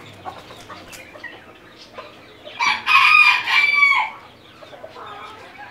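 A rooster crowing once, a cock-a-doodle-doo lasting about a second and a half, starting about halfway through.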